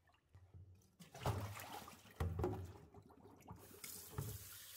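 Hands sloshing and scrubbing a raw beef tongue in a plastic basin of water, with splashes about a second in and again about two seconds in. Near the end the kitchen tap starts running onto it with a steady hiss to rinse it.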